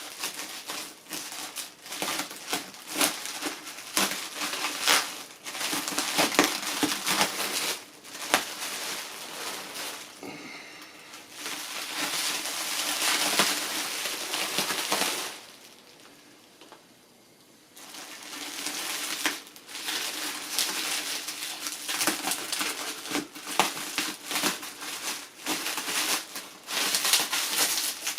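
Packing material crinkling and crunching as it is handled and pulled from a shipping box, in two long stretches of dense crackle with a pause of about two seconds between them.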